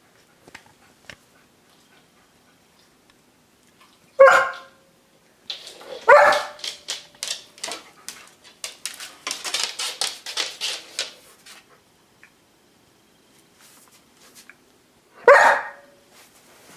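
White shepherd dog barking as a seizure alert: three loud single barks, about four seconds in, about six seconds in and near the end. Between the second and third barks comes a run of quick, noisier strokes.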